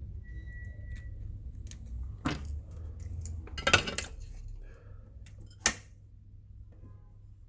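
Hand tools and small metal parts being handled on a workbench: a few sharp metallic clinks and knocks, the loudest just before the four-second mark and another near six seconds, over a low steady hum. A brief high steady tone sounds within the first second.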